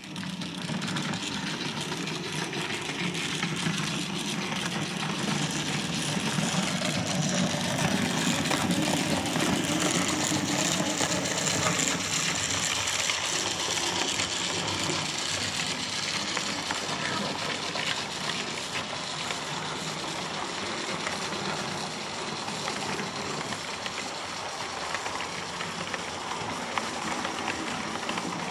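OO gauge model trains running on the layout track: a steady rushing of the locomotive's electric motor and the wheels on the rails. It grows louder as a train passes close, around eight to twelve seconds in, then eases.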